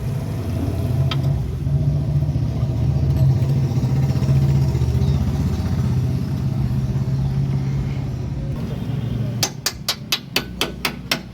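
A steady low machine hum, then from about nine seconds in a fast run of sharp metal-on-metal hammer blows, about four a second.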